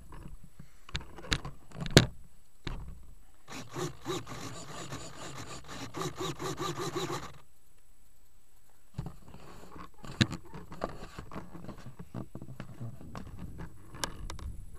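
Handling noise from the nose camera of an RC plane lying in grass: scattered knocks, clicks and scrapes, with a sharp knock about two seconds in as the loudest. A pulsing pitched buzz runs from about three and a half seconds to about seven seconds.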